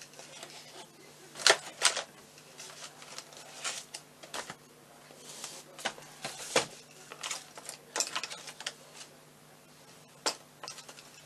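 Irregular clicks, taps and rattles of paintbrushes, tools and small pots being moved about on a cluttered work table in a search for a clean brush, with a few sharper knocks among them.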